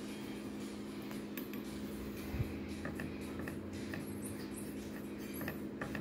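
Steady low hum, with a soft knock about two and a half seconds in and a few faint short squeaks and scratches of a paintbrush working paint onto canvas.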